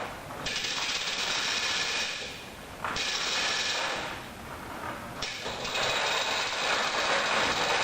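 Rope tackle's pulley blocks ratcheting rapidly in three runs of a second or more each, with short breaks between, as the lines are hauled or eased to roll the hull.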